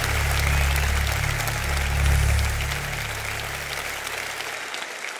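Concert audience applauding over a low, held bass note from the band; the note dies away about four seconds in, and the applause fades down toward the end.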